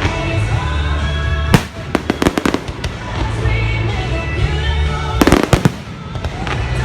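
Fireworks exploding over music played through loudspeakers. One sharp bang comes about a second and a half in, then a quick run of cracks, and a second cluster of rapid bangs follows near the end.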